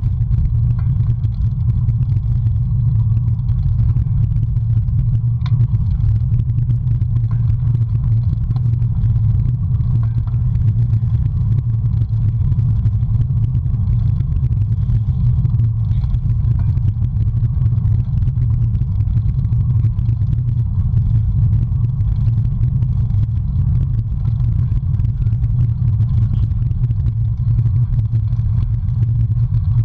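Steady wind rumble buffeting the microphone of a cyclist's action camera while riding along a paved road, with road and tyre noise underneath.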